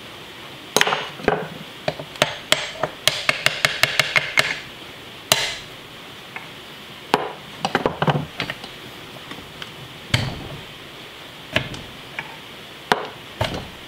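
A hammer striking a punch against a round steel planetary axle hub part clamped at the bench gives sharp metal blows. There is a quick run of about eight light taps around three to four seconds in, and scattered single blows and short clusters through the rest.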